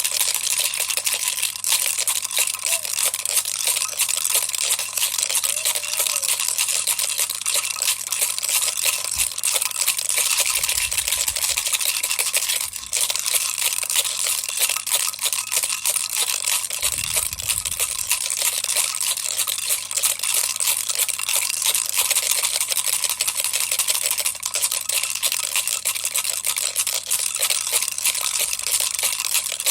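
Baby's toy rattle shaken continuously: a dense, rapid, even rattling with no pauses, over a faint steady low hum.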